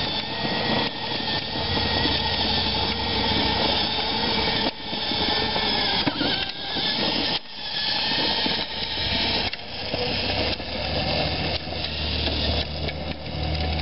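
Battery-powered ride-on toy ATV running: its small electric motor and gearbox whine steadily while the hard plastic wheels roll on concrete, with two brief dips partway through.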